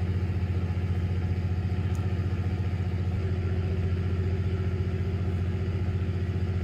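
A boat engine running steadily at idle: a low, even drone with a fast regular pulse.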